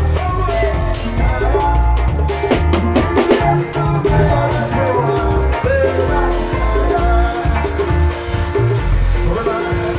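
Live band playing upbeat gospel music: drum kit with cymbals, electric bass guitar and electric guitar, with a quick run of drum hits about two to three seconds in.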